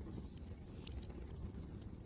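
Wood fire crackling in a fireplace: irregular sharp pops and snaps, several a second, over a steady low rumble of wind.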